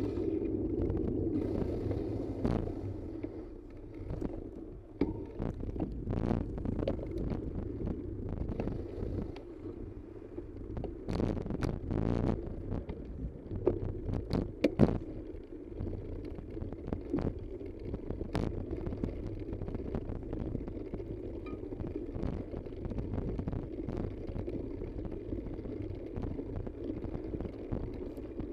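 Steady low rumble of travel on a road with wind buffeting the microphone, broken by scattered knocks and rattles that cluster around the middle.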